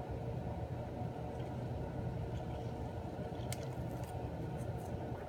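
Steady low room rumble with a faint hum, broken by a few faint ticks late on.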